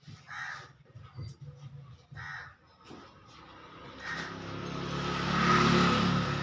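A patient's drawn-out, harsh cry of pain during eye surgery. It swells from about four seconds in and is loudest near the end, after two short vocal sounds earlier.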